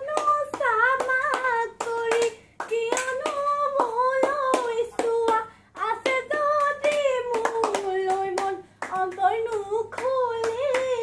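A person singing a melody in a high voice, holding long notes that bend gently, to steady hand claps keeping the beat.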